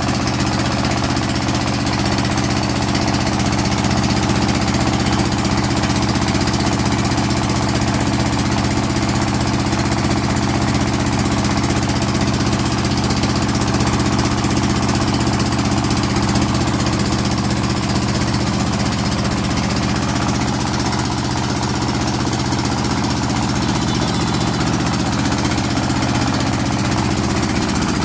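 The 25 HP diesel engine of a portable hydraulic water well drilling rig running at a steady speed, an even drone that does not change.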